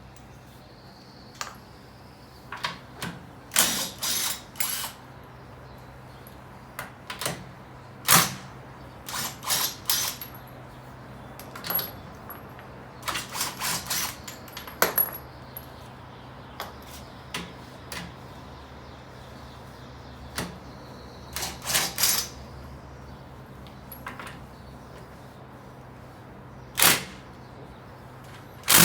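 Scattered metallic clinks and clanks of tools and metal parts being handled during wheel work. Some come singly and some in quick clusters of about a second, over a faint steady hum.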